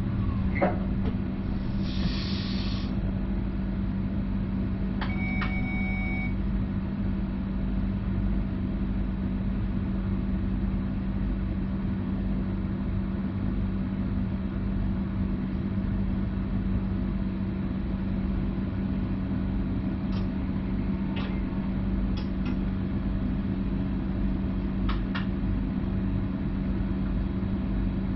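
Stadler FLIRT Sm5 electric multiple unit running, heard from inside the driver's cab: a steady rumble with a constant hum. A short hiss comes about two seconds in, then a brief tone lasting about a second, and a few light clicks.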